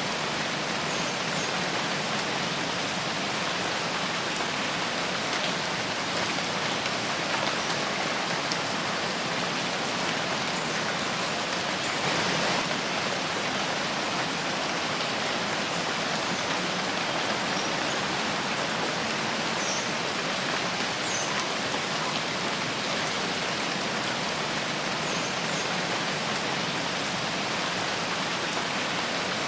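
Steady rain falling in a forest, an even wash of drops, swelling slightly for a moment about halfway through.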